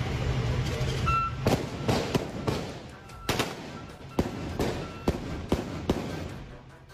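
A vehicle engine runs with a steady low hum, which cuts off about a second in. From about a second and a half in come about a dozen sharp cracks and bangs at uneven intervals, growing fainter toward the end.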